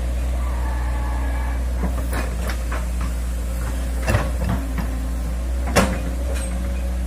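Hitachi hydraulic excavator running with a steady low engine drone while digging, with a few sharp knocks from the machine working, the loudest about six seconds in.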